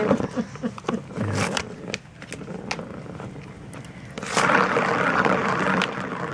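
Puppy biting and pawing at a cat-scratcher toy, with scattered clicks and scrapes of teeth and claws on its cardboard pad and plastic rim. About four seconds in, the toy's plastic ball is spun around its ring track, giving a loud rolling rush that lasts about a second and a half.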